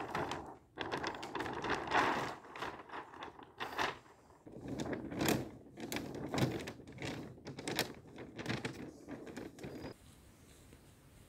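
Rustling and knocking as a small trimaran's sail and rigging are handled by hand, in irregular clusters of rustles and sharp clicks that stop about ten seconds in.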